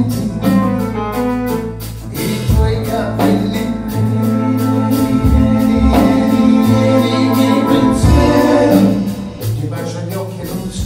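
Live band music: a man singing, with saxophone and double bass, including long held notes in the middle.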